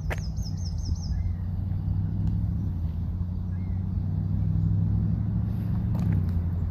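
A motor vehicle's engine running low and steady, swelling slowly as it draws near. In the first second a bird gives a short run of about six quick, repeated high chirps.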